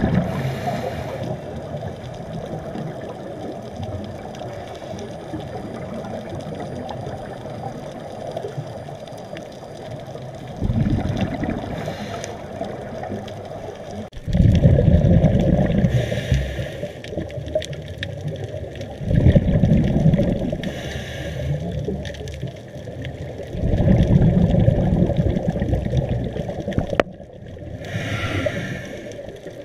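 Scuba diver breathing through a regulator underwater: a short hiss on each inhale, then a longer rumble of exhaled bubbles, repeating every four to five seconds over a steady underwater noise.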